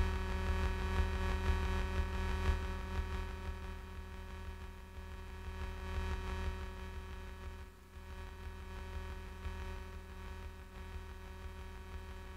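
Electronic keyboard holding a sustained droning chord of steady tones over a low throbbing pulse, slowly fading away.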